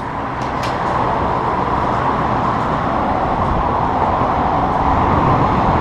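Steady rush of passing street traffic, swelling in the first second and then holding, with a couple of light clicks near the start.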